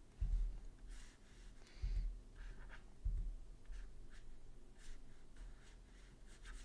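Stylus strokes scratching across a drawing tablet as a digital painter draws with a round brush, with three soft low thumps in the first few seconds.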